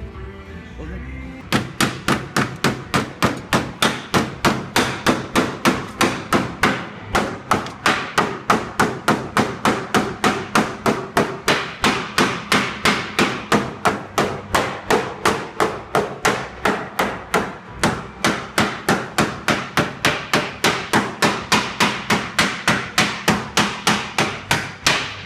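Hammer blows on sheet steel, struck evenly about three and a half times a second with a faint metallic ring. They start about a second and a half in.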